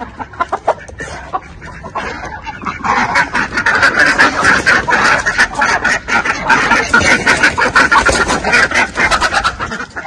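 Chickens squawking in alarm with a flurry of wing-flapping and scuffling on a concrete floor as they are chased. It grows loud and dense about three seconds in.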